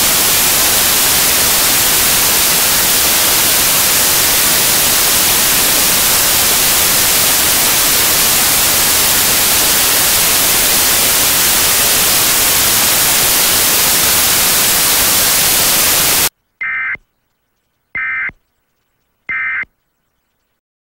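Loud, steady static hiss that cuts off suddenly, followed by three short, buzzy two-tone data bursts about a second and a half apart: the Emergency Alert System end-of-message tones that close an alert.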